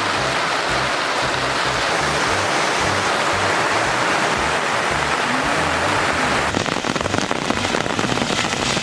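Heavy rain falling steadily, with background music underneath. About six and a half seconds in, the rain gives way to a closer patter of separate drops striking a surface.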